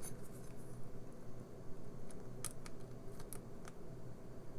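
A handful of light, scattered clicks and taps of small hand tools on the tiny plastic parts of a hearing aid being taken apart, over a faint steady low hum.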